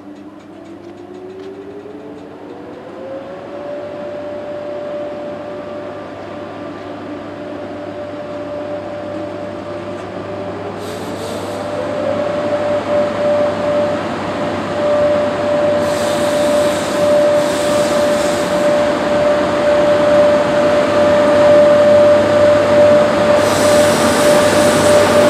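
A pair of VR Sr1 electric locomotives approaching and passing close, growing steadily louder. Their electric whine rises in pitch twice and then holds one steady note, over growing rumble. Short high-pitched hissing bursts come now and then in the second half.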